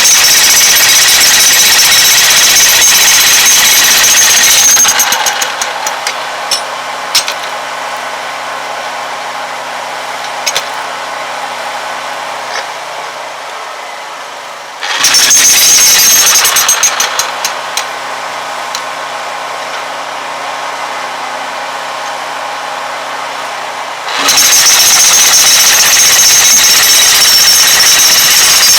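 Jackhammer breaking up concrete. The hammering stops about five seconds in, leaving a quieter steady machine hum with a few clicks. It starts again briefly around fifteen seconds, then runs steadily from about twenty-four seconds on.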